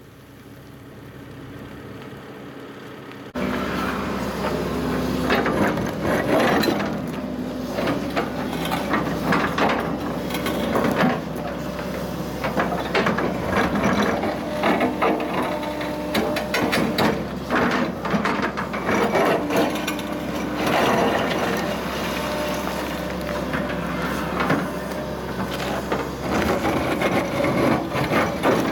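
From about three seconds in, an excavator's ripper tine tears into freshly blasted granite: the engine runs steadily under load while broken rock clatters, grinds and knocks against the steel tine and against itself in many irregular cracks.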